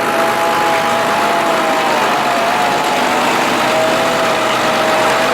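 Farm machinery engine running steadily, with a constant whine over it.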